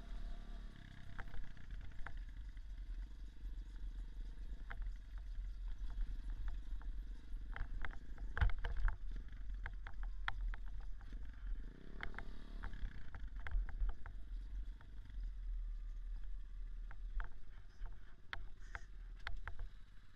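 Small off-road motorcycle engine running under a heavy low rumble as the bike rides over rough trail. Its pitch rises and falls about twelve seconds in, and sharp knocks and rattles from bumps are scattered throughout.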